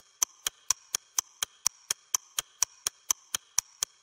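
Steady, clock-like ticking, sharp and evenly spaced at about four ticks a second, the ticking rhythm that opens the backing track.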